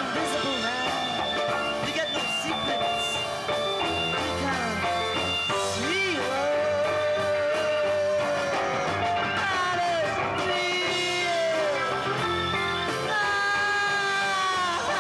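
A live electric rock band playing, with a male lead vocal singing over the band.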